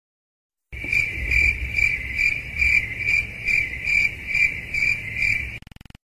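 Stock sound effect of crickets chirping in a steady, even rhythm of a little over two chirps a second, over a low background rumble. It starts about a second in and cuts off shortly before the end.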